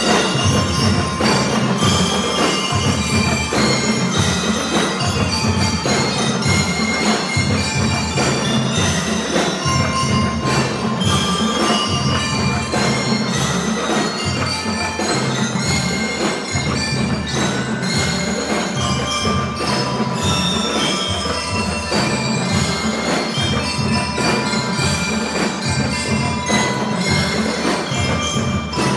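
Drum and lyre corps playing: bell lyres ring out a melody of short metallic notes over a steady beat of marching drums.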